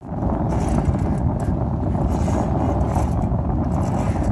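Steady low rumble of a boat's engine running, mixed with wind on the microphone.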